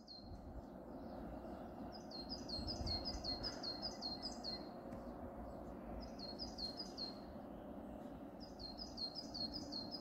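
A songbird singing phrases of rapid high notes, each note sliding down, about two seconds in, again around six seconds and near the end, over the steady low hum of distant city noise.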